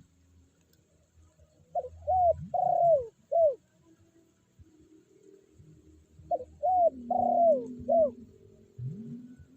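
Spotted dove cooing: two phrases of four short notes, each note falling in pitch, about four seconds apart, with lower rising notes underneath.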